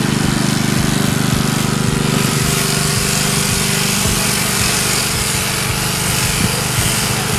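Sheep shearing handpiece running with a steady buzz as it cuts through a ram's fleece; the sound thins in its low hum and gets hissier about two seconds in.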